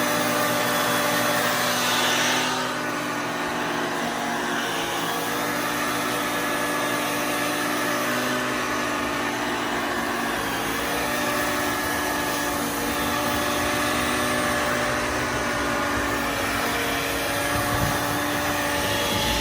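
EGO battery-powered multi-tool with its power brush attachment running steadily, its motor-driven bristles sweeping light snow off a walkway.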